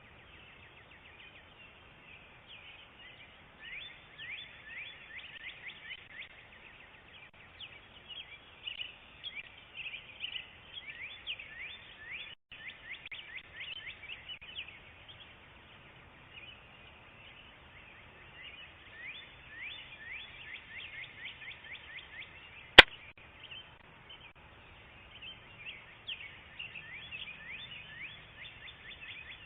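Rapid, high chirping calls of small outdoor animals, coming in bursts with brief lulls, heard through a doorbell camera's microphone. A single sharp click about 23 seconds in.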